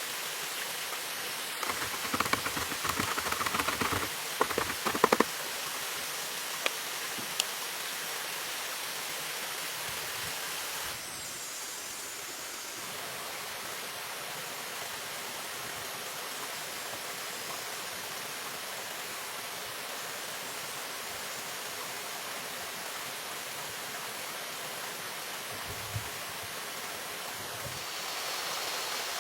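Steady rush of flowing water, with a run of knocks and clatters about two to five seconds in and a couple of single clicks after. It drops a little in level at about eleven seconds.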